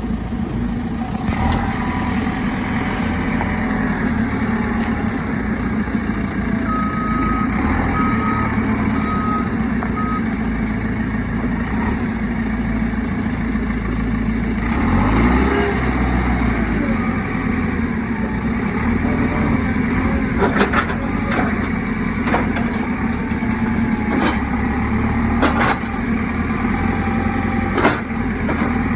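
2007 JCB 3CX backhoe loader's diesel engine running steadily, with four short reversing-alarm beeps about a quarter of the way in. The engine revs up and back down about halfway through, and there are a few sharp knocks in the last third.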